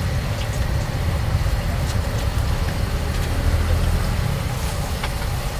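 Steady low rumble of road traffic, with a few faint clicks of metal cooking utensils.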